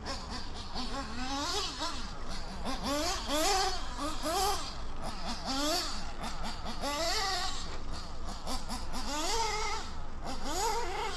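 Small nitro RC buggy engine, a HOBBYTECH B213, running on the track and revving up and down every second or so as the throttle opens and closes.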